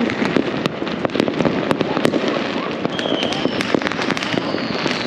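Many fireworks and firecrackers popping and banging in rapid, overlapping succession, with a high whistle from about three seconds in.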